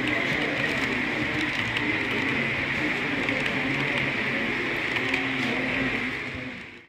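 H0-scale model passenger train running past on layout track, a steady high whine with the running noise of the coaches' wheels on the rails. The sound fades out at the end.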